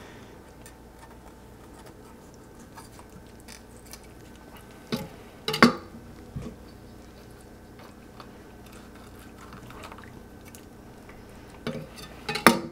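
Quiet handling of a raw fish with a filleting knife on a wooden cutting board: soft wet cutting and faint ticks, broken by a few sharp knocks, the loudest about five and a half seconds in, and a short cluster of knocks near the end.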